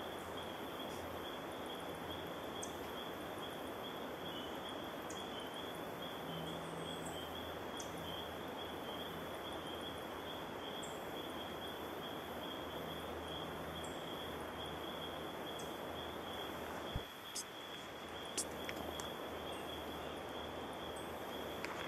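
Forest ambience: a steady high-pitched insect trill over an even background hiss, with a few faint short high chirps and a single sharp knock late on.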